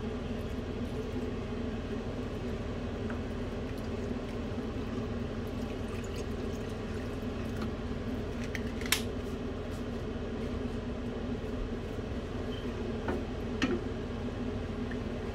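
Milk being poured into a frying pan of roux, then a wooden spoon stirring the thickening white sauce, over a steady low hum. A sharp knock comes about nine seconds in and two more near the end.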